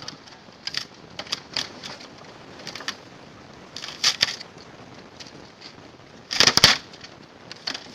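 Irregular sharp knocks, scrapes and cracks of a refrigerator being broken apart, with a louder crunching clatter about six and a half seconds in.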